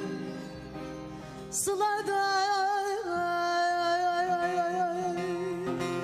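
A woman sings a Turkish folk song (türkü) into a microphone, drawing out the word "sılada" about two seconds in over long, ornamented held notes with vibrato. Instrumental accompaniment plays underneath.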